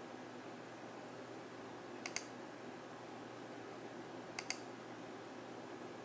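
Two quick double clicks from a computer's input device, about two and a half seconds apart, over a steady low hiss.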